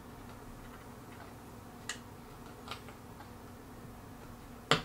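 A few scattered sharp clicks from assembly hardware and a hand tool being handled while the table's bracket screws are tightened; the loudest is a sharp knock near the end, over a faint steady hum.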